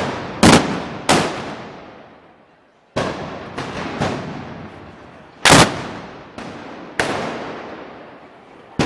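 Loud gunpowder bangs going off one after another at uneven intervals, about eight in all, each echoing and dying away over a second or more. The loudest comes about five and a half seconds in.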